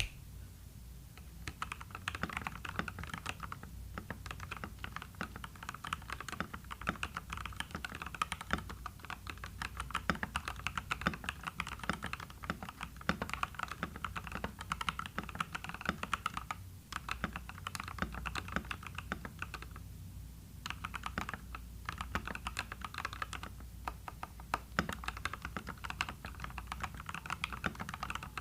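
Fast, continuous typing on a tenkeyless mechanical keyboard with lightly lubed Gateron Pro Yellow linear switches. The case is dampened with EVA foam and a band-aid mod, and the stabilizers are lubed. The keystrokes start about a second and a half in and stop briefly a few times.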